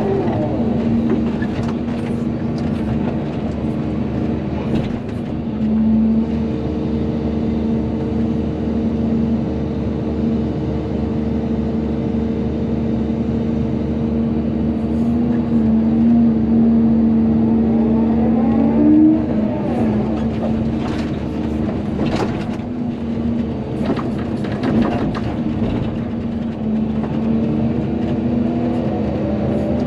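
Volvo EC220DL excavator's diesel engine running steadily under working load. Its pitch swings up and down a few times as the hydraulics work, and a few sharp knocks come in the second half.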